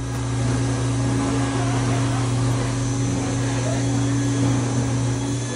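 Steady machine drone with a low hum, like a blower motor running, from a candy display machine. Faint voices are underneath.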